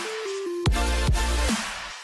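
Electronic background music: three short falling notes, then a deep bass hit about two-thirds of a second in, with bass notes that slide down in pitch under a beat, thinning out near the end.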